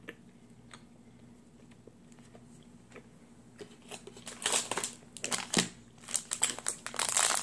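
Crinkling of a plastic snack wrapper as it is taken out of a cardboard box and handled, starting about four and a half seconds in and going on in irregular bursts after a quiet stretch.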